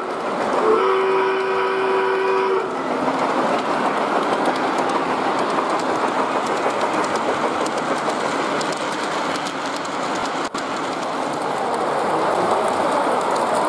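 G-scale model steam locomotive's sound-unit whistle blowing one steady blast of about two seconds, starting under a second in, over the rolling rumble and rail clatter of model trains running on the layout. The whistle then stops and the running noise carries on steadily.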